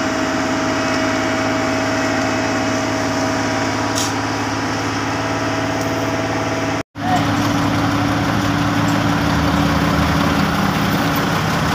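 Heavy diesel engine of an asphalt paver running steadily at close range, a constant hum with a few steady tones. It cuts out for an instant about seven seconds in, then machinery engines run on with a stronger low hum.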